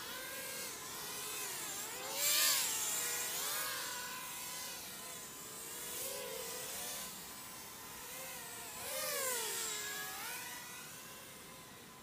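Micro FPV quadcopter's brushless motors (DYS 1104 4000kv with Gemfan 3025 three-inch props) whining in flight, the pitch rising and falling with the throttle. Loudest about two seconds in and again about nine seconds in, and fading away near the end.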